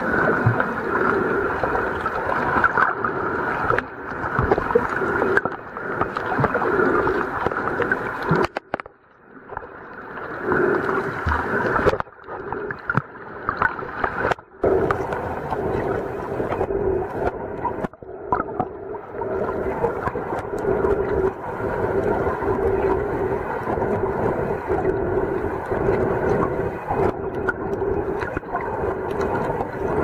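Muffled underwater sound picked up by a submerged camera: a steady drone with water swishing over it. It drops away abruptly several times in the first half.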